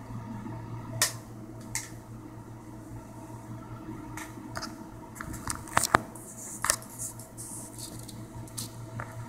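Steady low hum in a small quiet room, broken by scattered short sharp clicks and light rubbing or handling noises, several close together around the middle.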